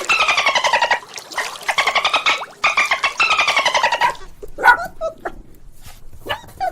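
A goat bleating: several long, wavering bleats. About four seconds in they stop, and short chirps and clicks follow.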